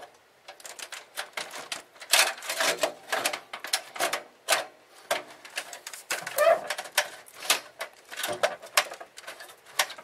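Rapid, irregular clicks, knocks and scraping of plastic and metal parts being handled inside a desktop computer case while a graphics card is worked into place.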